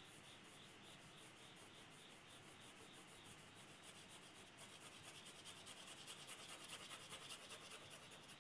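Graphite pencil hatching on drawing paper: faint, quick back-and-forth strokes in an even rhythm of several a second, growing a little louder past the middle.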